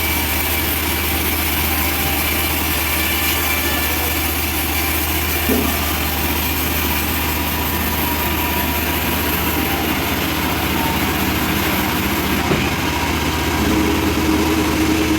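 Engine of a band sawmill running steadily, with a constant low hum and a hissing noise above it. The highest hiss drops away about three-quarters of the way through. There are two faint brief knocks.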